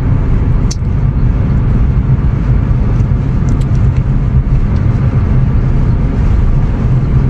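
Steady low rumble of a car driving, road and engine noise heard inside the cabin, with a few faint clicks about a second in and around three seconds in.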